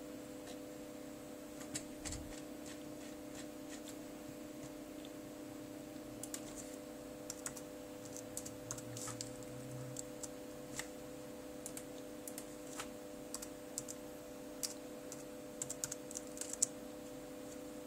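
Keys of an HP nx7400 laptop keyboard being typed on: irregular, scattered keystroke clicks with a quicker run of them near the end, over a steady hum.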